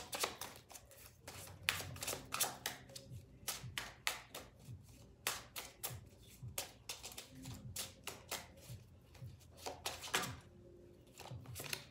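A deck of reading cards being shuffled by hand, overhand, a quick irregular run of soft card slaps and flicks that thins out near the end.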